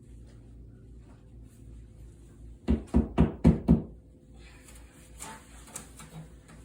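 Five quick knocks on the wall, about a second in all, as a drywall anchor is tapped into its drilled hole, followed by faint rustling.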